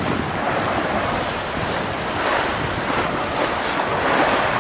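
Sea waves rushing and breaking along the hull of a sailboat under way in rough water, swelling louder twice. Wind buffets the microphone throughout.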